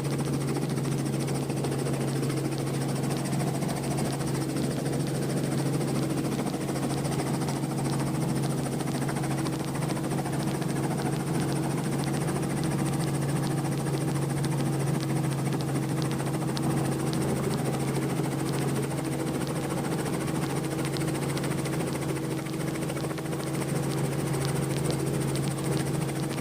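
Helicopter engine and rotor running steadily during the hover and touchdown on a landing pad, a constant drone with two steady pitched tones.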